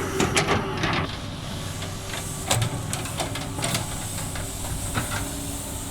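Volvo excavator's diesel engine running steadily with a hiss, while sharp knocks and clatter come in a quick cluster in the first second and a few more over the next several seconds.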